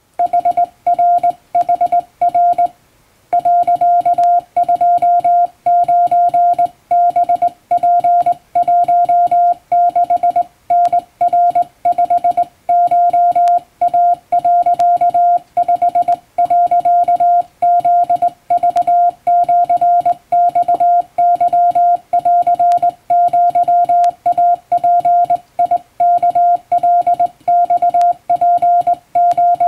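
Japanese wabun Morse code sent by hand on a straight key: a single mid-pitched tone keyed on and off in quick dots and dashes, with a brief pause about three seconds in.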